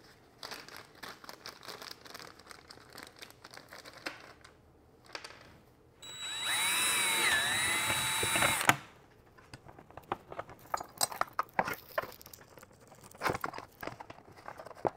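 DeWalt cordless drill running for about two and a half seconds, driving an M5 screw down through the dash-mount bracket into the dash tray. Its whine dips in pitch partway through as it loads up, then cuts off suddenly. Small clicks and rustles of hardware and parts being handled come before and after.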